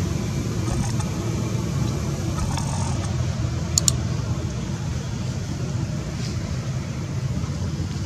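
A steady low rumble of background noise, with two quick sharp clicks a little under four seconds in.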